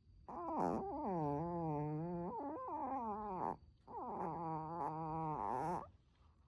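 Sleeping chihuahua snoring: two long, pitched snores, the first about three seconds long and the second about two, each wavering in pitch.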